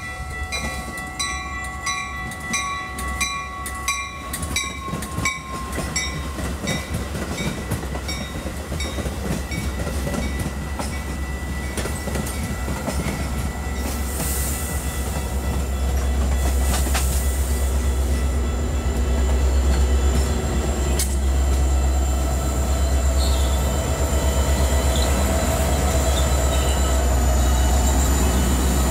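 A grade-crossing bell rings at about two strokes a second for the first several seconds as a Metra bilevel commuter train rolls into the station. Wheels click and squeal on the rails, and the diesel locomotive's engine rumble grows louder from about halfway through as the pushing locomotive draws level.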